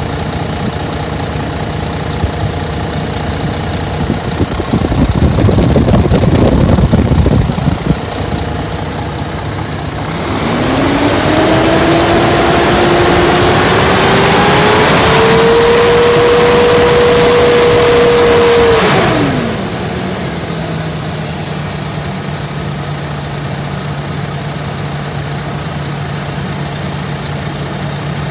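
2011 MaxxForce 13 inline-six diesel engine running at idle, with a louder, uneven stretch a few seconds in. About ten seconds in it is revved: engine speed climbs over several seconds, holds high for a few seconds, then drops back to a steady idle for the rest.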